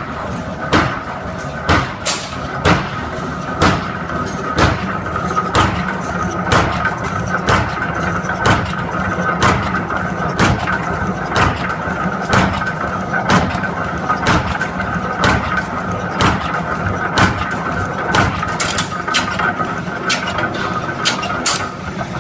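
Two-head punching and flaring machine running: a steady machine hum under sharp punching knocks, about one a second.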